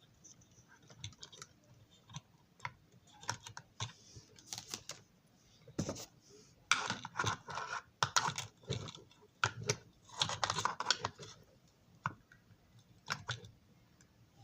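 Hands working on a small plastic model railroad car and its parts: scattered light clicks and taps, with a few brief scraping rustles partway through.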